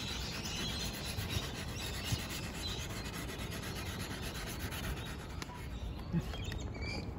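Fillet knife being sharpened, its steel blade scraped repeatedly against a knife sharpener. The scraping eases off about five and a half seconds in.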